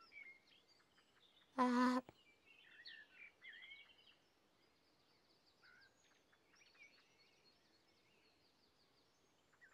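Faint birdsong, many small chirps and trills. About a second and a half in, one short held vocal note stands out above them.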